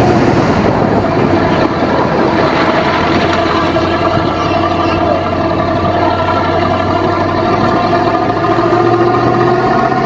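Motor vehicle engine running at a steady pitch, a constant loud drone with rattly noise over it.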